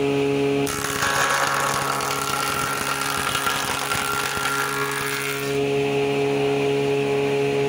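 Wood surface planer (jointer) running with a steady hum. Less than a second in, a bent board is pushed over the spinning cutter block and the blades shave it with a harsh rushing noise for about five seconds, planing it straight. Then the machine goes back to its steady running hum.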